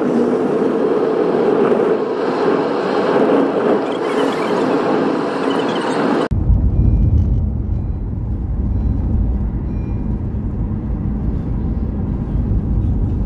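Riding in a moving car: a loud, even rush of road and traffic noise as a truck goes by alongside. About six seconds in it switches abruptly to the steady low rumble of the car cabin at speed.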